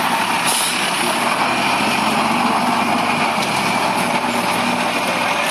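Steady, loud, unbroken din of idling engines with a faint hum.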